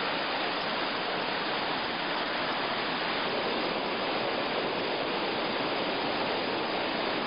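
Whitewater river rapids rushing steadily, an even, unbroken wash of water noise.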